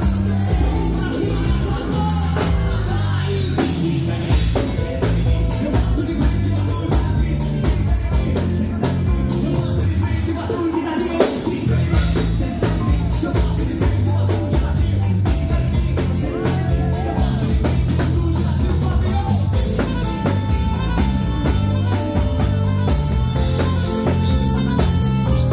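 Music with a steady drum beat, bass and a singing voice.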